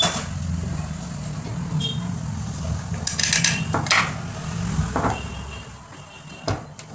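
A low steady rumble that fades after about five seconds, with a few brief scrapes and clicks as a plastic cabin fan's motor and mounting base are handled against a wall.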